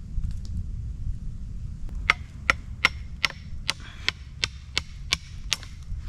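Firewood being chopped: about ten sharp, quick strikes on wood at a steady pace, starting about two seconds in, over a steady low rumble.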